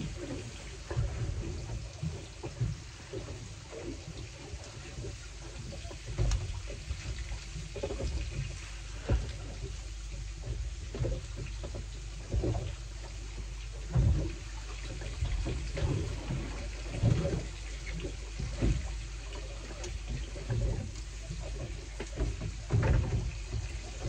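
Sea water sloshing and slapping against the hull of a small boat, over a steady low rumble, with irregular knocks and splashes.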